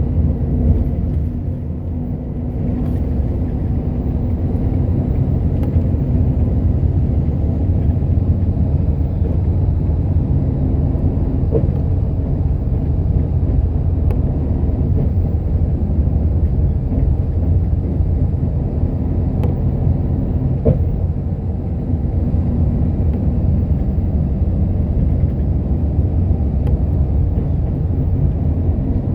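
Bus running on the road, heard from inside: a steady low rumble of engine and tyre noise with a few faint ticks.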